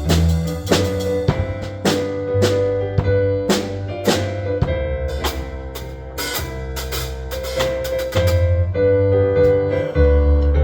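Worship band playing live: a drum kit keeps a beat with frequent cymbal hits over changing bass notes and held chords, with a quick run of drum strokes near the end.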